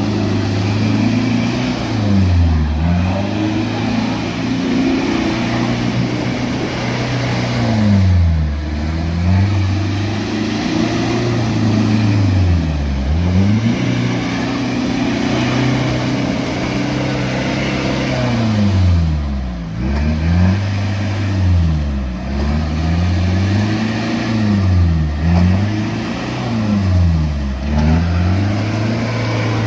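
A 4WD's engine running under way, its note dropping sharply and climbing back again about eight times as the throttle is eased off and reapplied.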